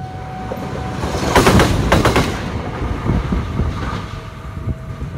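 Wheels clacking over rail joints: a quick cluster of sharp metallic clacks about one and a half to two seconds in, over a steady low rumble.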